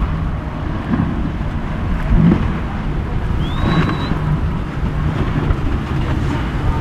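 Outboard engines of an Everglades 435CC center-console boat running as it crosses the inlet chop, with heavy wind rumble on the microphone. A brief rising whistle sounds about halfway through.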